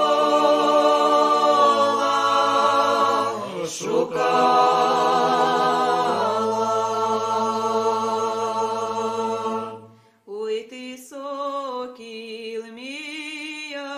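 A cappella vocal ensemble singing a Ukrainian folk song in several parts, with long held chords over a low sustained note. There is a short break about four seconds in, the chord cuts off about ten seconds in, and quieter singing then starts a new phrase.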